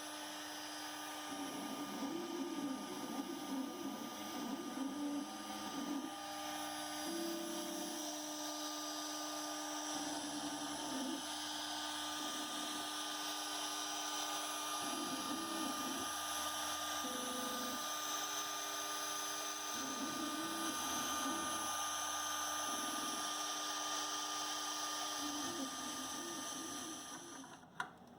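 Shop-built KRMx02 CNC router running: a steady high whine, with stepper-motor tones that jump to a new pitch every second or two as the axes move. It stops shortly before the end.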